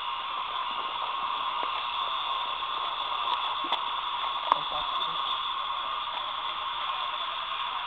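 Steady, dense high chirring of a night insect chorus, with a couple of sharp clicks a little past halfway.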